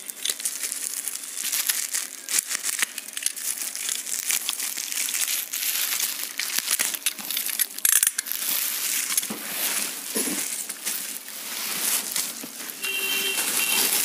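Plastic bubble wrap crinkling and crackling, with many sharp little clicks, as it is pulled and cut away from a cardboard monitor box.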